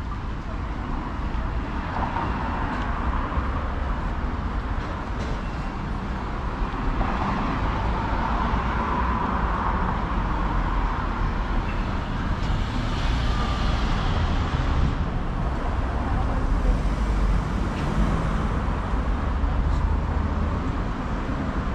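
City street traffic: a steady hum of passing cars and motor traffic.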